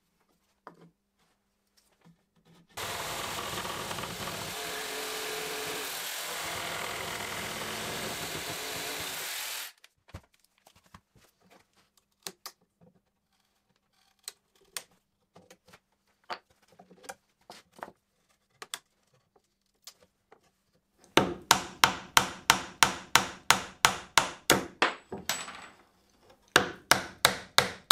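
A jigsaw cuts through wood steadily for about seven seconds. Scattered light knocks follow. Near the end a claw hammer strikes rapidly, about four blows a second, working old nails out of the table's timber.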